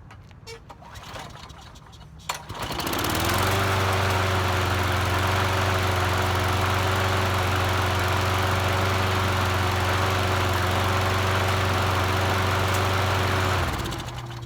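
Small lawn mower engine catching about two seconds in and running steadily at speed for about ten seconds on a test run, then shutting off.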